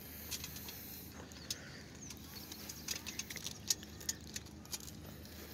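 Irregular light clicks and small rattles of camping gear being handled and fastened, over a faint steady low hum.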